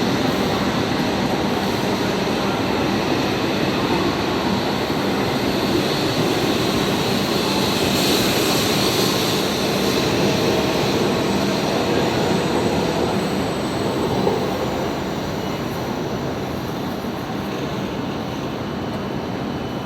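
E7 series Shinkansen pulling out of the platform, its cars rolling past with a steady running noise and a faint steady hum. The noise eases off a little after about fourteen seconds as the train draws away.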